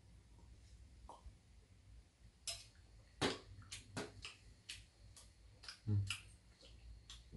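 Metal chopsticks clicking and scraping against a stainless-steel bowl and tray as food is picked up. There are scattered light clicks, with two louder clinks about three seconds in and about six seconds in, the second with a duller knock.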